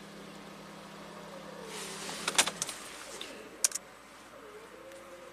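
A steady hum from the running turbocharged four-cylinder engine of a VW Golf, heard from inside the cabin, cuts off abruptly about two and a half seconds in, just after sharp clicks of the ignition key being turned off. Another key click follows about a second later.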